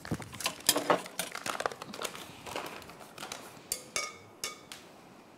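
Bowls and kitchen utensils knocking and clinking as they are handled on a work surface while dough ingredients are being measured out, with a ringing clink about four seconds in.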